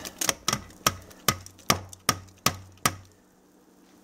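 Plastic food processor bowl knocked against the rim of a stainless steel stock pot to shake out the last of the chopped peppers: about nine sharp knocks, roughly two and a half a second, stopping about three seconds in.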